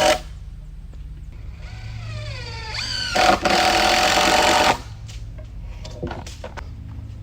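Power drill driving screws into timber in bursts. It stops at the start, gives a rising whine about two seconds in, then runs hard for over a second around the three-second mark, followed by a few light knocks.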